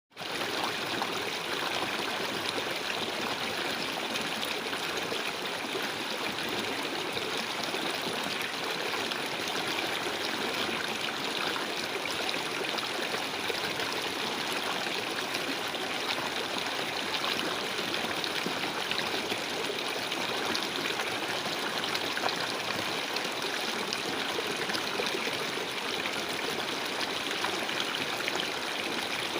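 A stream running, with a steady, unbroken rush of flowing water.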